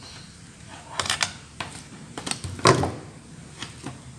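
Crimping tool and UTP network cable being handled as the cable's outer jacket is stripped: several separate sharp clicks and snaps, the loudest a little past halfway.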